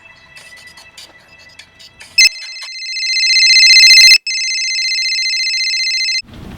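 A phone ringing: a high, warbling electronic ringtone starts suddenly about two seconds in and swells louder. It breaks off for an instant and then goes on at a steadier, lower level before stopping near the end. Faint background music comes before it.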